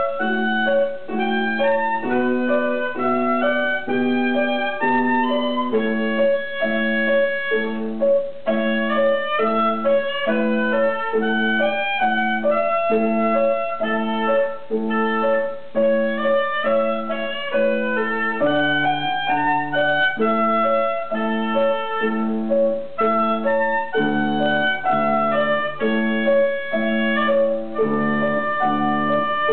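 Oboe and upright piano playing a piece together: a quick-moving oboe melody over evenly repeated piano chords.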